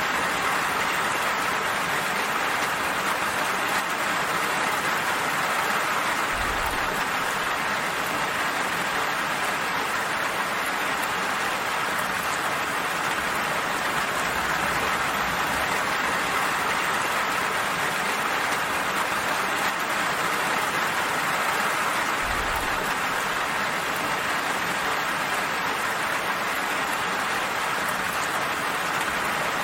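Gentle rain falling steadily: an even, unbroken hiss of raindrops.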